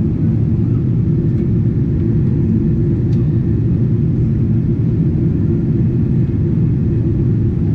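Cabin noise inside a Boeing 777-300ER in flight: a steady low rumble of its GE90 engines and air rushing past the fuselage, unchanging throughout.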